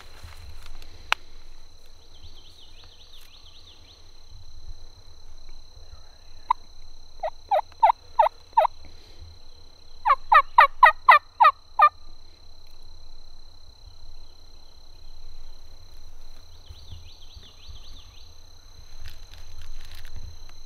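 Turkey yelps: a single note, then a run of five yelps, then a louder, faster run of about eight.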